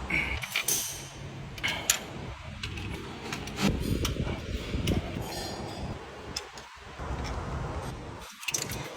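Intermittent light metallic clinks, taps and rattles of hand tools and engine parts being handled on the EA888 engine.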